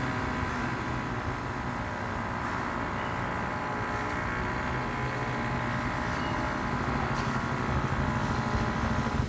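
Engine-driven construction machinery running steadily: a low engine rumble with a steady higher whine over it.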